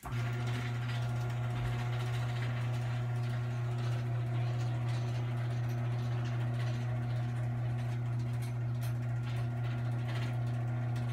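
Liftmaster 1/3-horsepower garage door opener motor switched on by the button and running steadily with a low, even hum as it drives the door.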